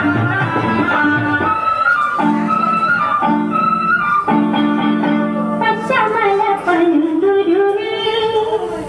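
Music: a melody over instrumental backing, with held notes at first and a line that slides and wavers in pitch from about six seconds in.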